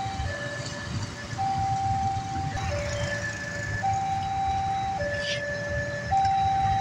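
Railway level-crossing warning alarm sounding a slow two-tone signal, a high and a low note taking turns about every second, meaning a train is approaching and the crossing is closed. Underneath is the steady rumble of idling motorcycle and car engines.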